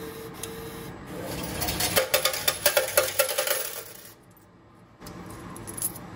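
Coin changer dispensing change: the mechanism runs up about a second in, then coins clatter one after another into the metal return tray for nearly two seconds. A single short clink follows near the end as the coins are picked out.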